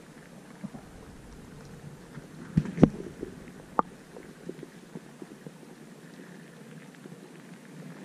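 Muffled underwater sound picked up through a submerged action camera's waterproof housing: a low rumbling hiss with a few sharp knocks, the loudest pair about two and a half to three seconds in and another near four seconds.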